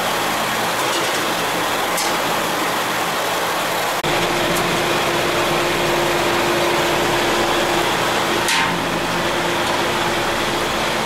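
Steady rushing noise of electric fans blowing across the open wood fires. After a break about four seconds in, a steady motor hum joins it, and a brief scrape follows near the end.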